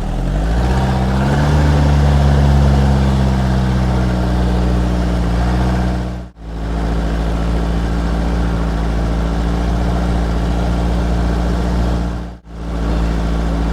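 Motor vehicle engine running under way; its pitch rises over the first second or so as it speeds up, then holds steady. The sound drops out briefly twice, about six and twelve seconds in.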